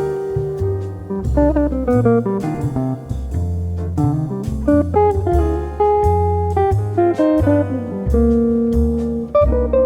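Jazz background music: guitar playing over a bass line and a drum kit.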